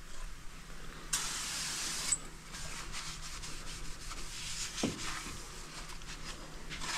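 Aerosol can of brake parts cleaner sprayed onto a brake rotor to degrease it: a sharp hissing burst of about a second starting about a second in, then fainter hiss, with a single knock about five seconds in.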